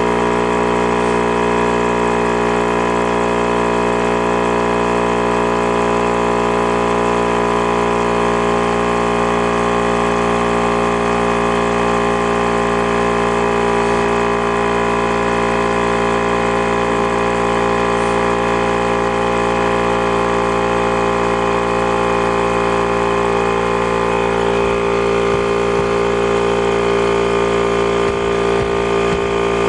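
A motor-driven machine running steadily at one constant speed, its pitch unchanging throughout.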